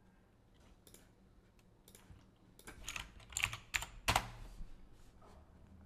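Keystrokes on a computer keyboard: a handful of separate taps as a short word is typed, bunched together a little past the middle, with the loudest tap just after.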